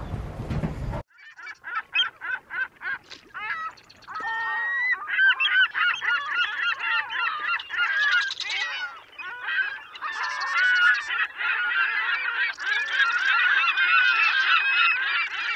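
A flock of waterbirds calling from the lake, many calls overlapping, starting suddenly about a second in after a brief burst of wind on the microphone.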